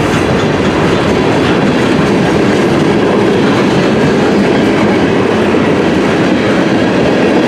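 Freight cars of a CN manifest freight train rolling past close by: a loud, steady rumble of steel wheels on the rails.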